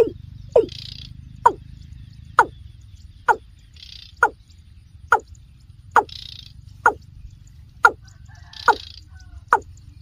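Watercock calling: a long run of short notes, each falling in pitch, about one a second. A few short hissy noises come in between.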